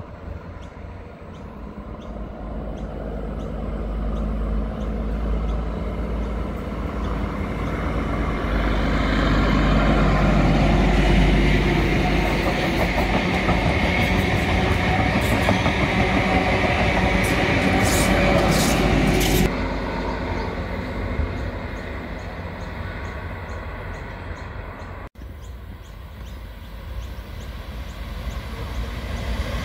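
A diesel passenger railcar set approaches and passes close by, its underfloor diesel engines and wheels rumbling louder and louder, with high wheel squeals and rail clicks as the cars go by. The noise drops off suddenly as the last car passes. Near the end a Qube diesel freight locomotive's engine comes up as it approaches.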